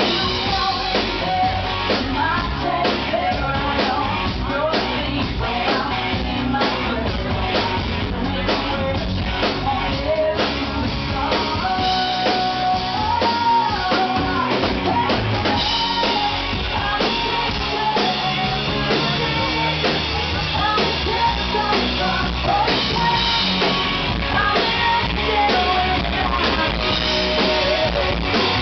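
Live band playing: a woman singing lead over acoustic guitar, electric guitars and a drum kit, amplified on a club stage.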